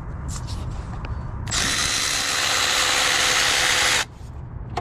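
Milwaukee cordless electric ratchet on a long extension, a few light clicks as the socket seats, then its motor whirs steadily for about two and a half seconds, spinning out a 10 mm screw, and cuts off suddenly.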